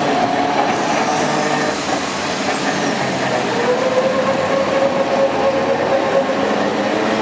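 Vintage electric tram running past close by on its street rails, with a whining tone that comes in about three and a half seconds in and holds steady.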